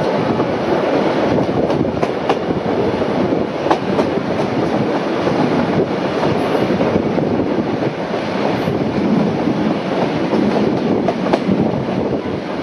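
Passenger carriage of a steam-hauled train rolling along at speed: a steady rumble of wheels and running noise with irregular clicks of the wheels over the rail joints, heard from an open carriage window.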